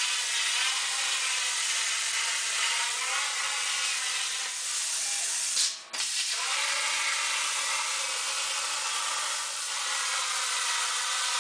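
Hobart Airforce 400 plasma cutter's arc cutting through metal tubing on a CNC tube cutter: a steady hiss that breaks off for a moment about halfway through, then resumes.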